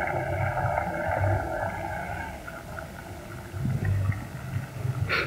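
Small RC model boat's motor whining steadily, fading out about two seconds in as the boat draws away. Low uneven rumbling fills the rest, with a short hiss near the end.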